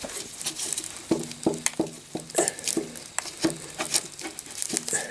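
Gloved hands working a rusty brake pedal on its pivot shaft under a car chassis: irregular light metallic clicks and knocks, some with a brief ring, as the pedal is shifted against parts that keep it from sliding off.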